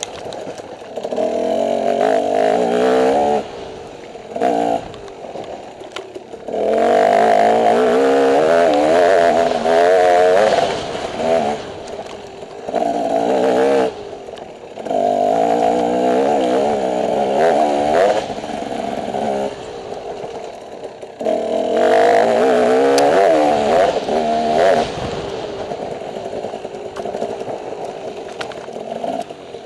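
Dirt bike engine heard from on board, revving in bursts of several seconds with the pitch climbing through each one, then falling back to a quieter, rougher note between bursts as the bike picks its way along the trail.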